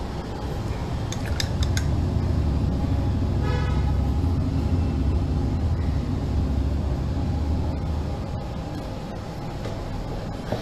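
Road traffic: a vehicle rumbling past for several seconds, with one short horn toot about three and a half seconds in, over a steady background hum.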